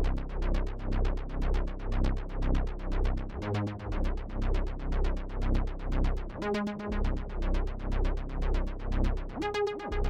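Air Music Tech Jura software synthesizer playing its Arp Bass preset: a steady arpeggiated bass pattern of quick, evenly repeating notes. Three times a longer held note sounds over it, the last one sliding up in pitch.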